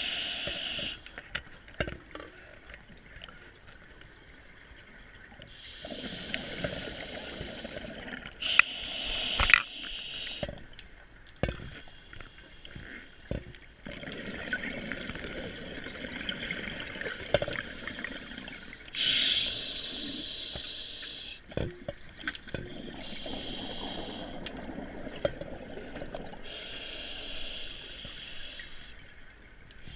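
Scuba breathing through a regulator underwater: hissing inhalations alternating with longer rumbling bursts of exhaled bubbles, several breaths in turn, with a few sharp clicks between them.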